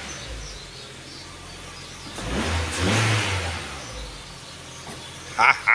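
Ford Fiesta Mk6 petrol engine idling, revved once about two seconds in and settling back to idle, during a rev test just after it was brought back to running by tapping the sticking starter motor.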